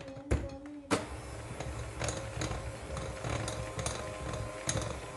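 Bosch electric hand mixer running, its beaters working flour into a thick cookie batter in a glass bowl. A steady motor whine, with a sharp knock about a second in and scattered clicks of the beaters against the glass.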